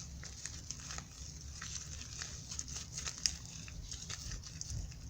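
Hands working a homemade slime mixed with lotion and shaving cream, pulling and squishing it, giving scattered faint crackles and small clicks.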